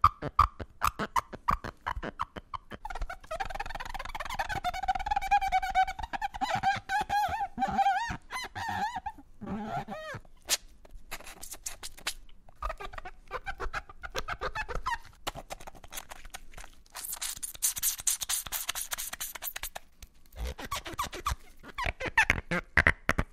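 Foley of rubber and foam being rubbed into squeaks. It starts with rapid clicks, then a long wavering squeal holds for several seconds. More clicks and short squeaks follow, with a burst of hiss about three-quarters of the way through.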